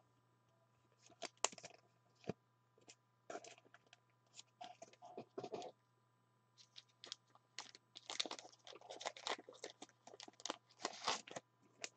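Faint, irregular clicks and crinkly rustles of hands handling things off-camera, over a faint steady low hum.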